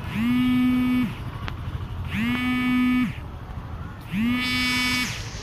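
A steady hooting tone, each about a second long with a short upward slide at the start and a drop at the end, sounding three times about two seconds apart.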